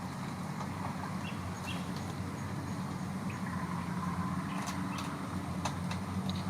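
A steady low mechanical drone, with scattered light clicks and ticks over it.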